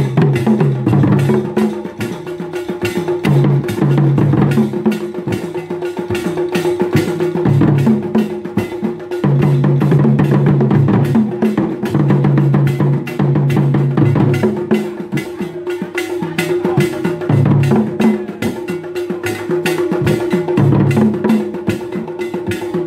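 Traditional Ghanaian drum ensemble playing live: a pair of barrel drums struck with sticks and tall standing drums, in a dense, fast rhythm with shifting low drum pitches over a steady held tone.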